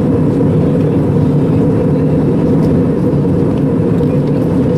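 Steady cabin noise of an Airbus A320 in flight, heard from a window seat over the wing: a constant low rush of the jet engines and the airflow.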